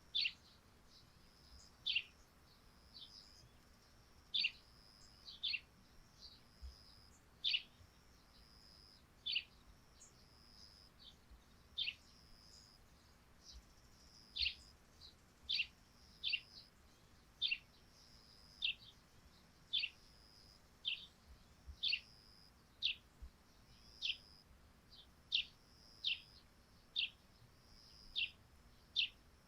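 Eurasian tree sparrows chirping: short, sharp notes that drop in pitch, repeated roughly once a second, sometimes in quick pairs.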